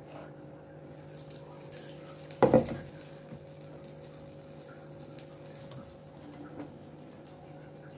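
A batter-coated cauliflower floret sizzling in hot oil in a wok, over a steady low hum, with one loud knock about two and a half seconds in.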